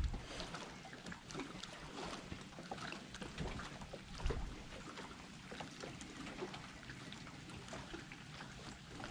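Small lake waves lapping softly, with scattered light splashes and clicks and a slightly louder tap about four seconds in.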